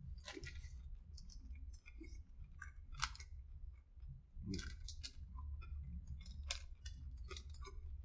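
A person chewing a mouthful of sub sandwich with crispy fried onion pieces: soft, irregular crunches and wet mouth clicks, a little louder about three seconds in and again a second and a half later, over a low steady hum.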